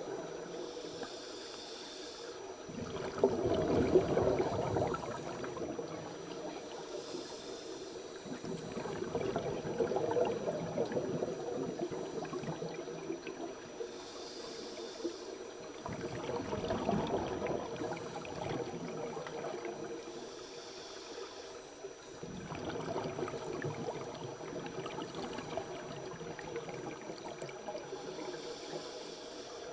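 Scuba regulator breathing heard underwater: a hiss on each inhale, followed by a longer, louder burble of exhaled bubbles, repeating about every six to seven seconds. Five inhales and four exhales.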